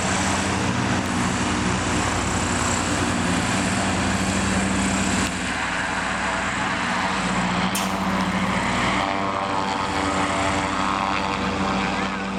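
Zeppelin NT airship's piston engines and propellers droning steadily overhead, the engine tone shifting a little about five and again about nine seconds in. A short click about eight seconds in.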